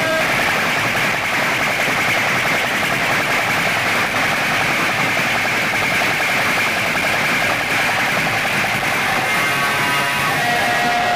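A loud DJ sound system playing at a street procession, heard as a dense, noisy wash with little clear tune through the crowd. A melody becomes clear again near the end.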